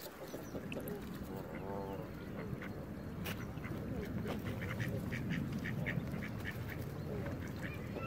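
Mallards quacking and Canada geese honking: a drawn-out call about two seconds in, then a run of short calls in the second half, over a steady low background rumble.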